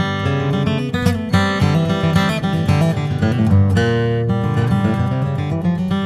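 Yamaha FG9 M dreadnought acoustic guitar, solid Adirondack spruce top with solid African mahogany back and sides, flatpicked in a bluegrass tune: quick runs of single notes mixed with strummed chords.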